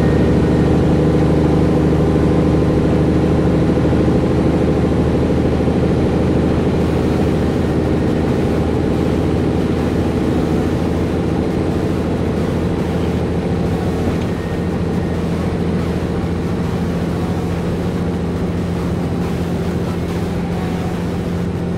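Cabover Peterbilt 362 semi truck's diesel engine running steadily at highway cruise, with tyre and wind noise, heard from a camera mounted low on the outside of the truck. The engine note holds an even pitch and eases slightly in level about two-thirds of the way through.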